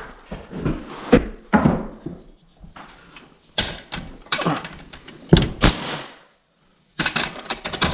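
Irregular hard knocks and thuds from work on wooden wall framing, about half a dozen spread out, then a quick clatter of knocks near the end.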